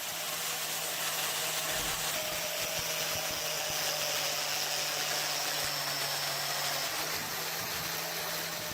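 A power tool running steadily: a low hum under a broad, even hiss.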